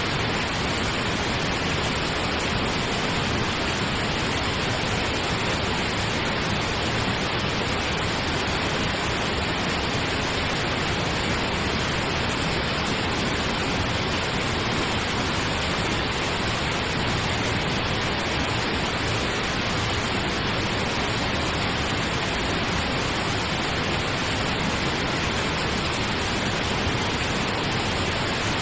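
Steady pink noise: an even, unvarying hiss across the whole range, with no pulses or changes.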